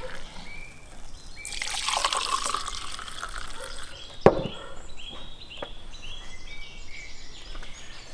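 Red wine poured from a clay jug into a glass tumbler, a splashing trickle lasting about two and a half seconds. It is followed by a single sharp knock on the wooden table just after four seconds in.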